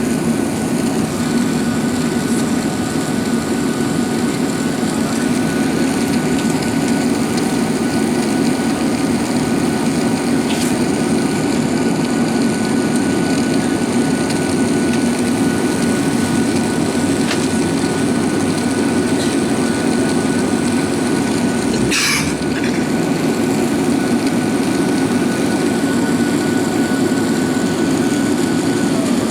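Steady rumble of an Airbus A380 heard from inside the passenger cabin, engine and airframe noise with a faint steady whine above it. One brief sharp click comes about three-quarters of the way through.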